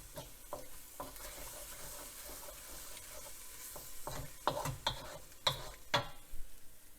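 Chicken in kung pao sauce sizzling in a wok while being stirred, the utensil scraping and knocking against the pan several times in the second half, as the sauce cooks down and thickens.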